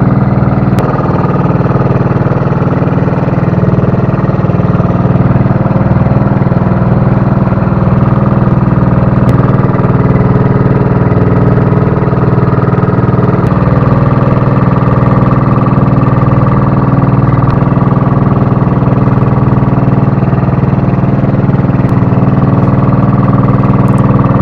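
The inboard engine of a motorized outrigger boat (bangka) running steadily under way, a loud, even drone that holds without change.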